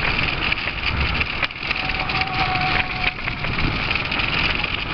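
Small motorcycle engines of a large convoy running together, heard from a bike riding among them as a dense rough noise with a low rumble. A thin steady tone sounds for about a second and a half near the middle.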